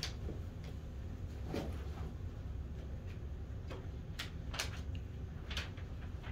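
Steady low room rumble with several short, sharp clicks and taps scattered through it.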